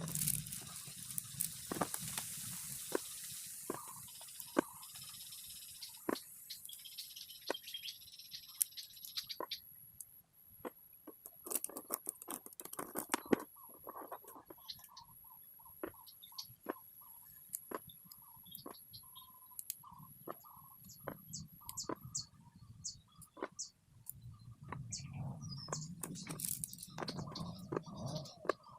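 Small neodymium magnetic balls clicking as they snap together and are handled, in irregular sharp clicks, with birds chirping in the background.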